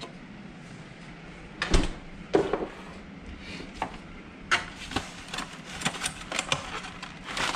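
A few scattered knocks and clunks of things being handled and set down on a kitchen counter, the loudest about two seconds in, over a faint steady hum.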